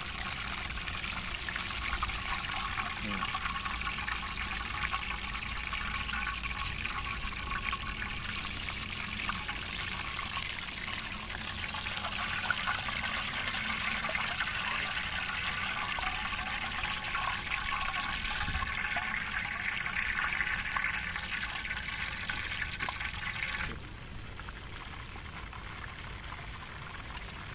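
Marinated quail deep-frying in hot oil in a kadai: a steady, dense sizzle with fine crackles. About 24 seconds in it drops to a quieter, softer sizzle.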